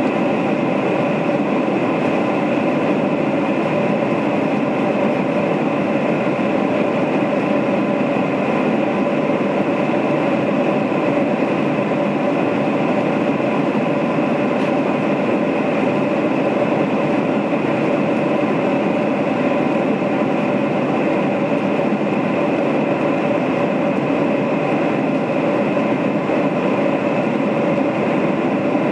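Steady cabin noise of a four-engined Boeing 747-400 in flight, heard from inside the cabin: engine drone and rushing airflow with a few steady hum tones, unchanging throughout.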